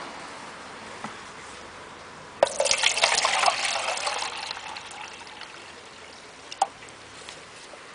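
Water poured into a clear plastic container, starting suddenly with a splash about two and a half seconds in and trailing off over the next two to three seconds as the container fills. A short sharp click follows later on.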